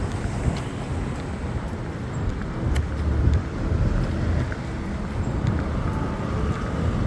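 Street traffic noise: cars passing on a city road, a steady low rumble that swells a few times around the middle.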